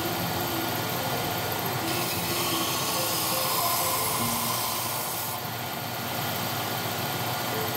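Belt sander running steadily. A walnut cutting board is pressed against the moving belt from about two seconds in until about five and a half seconds, adding a high sanding hiss of abrasive on wood, and is lifted off again.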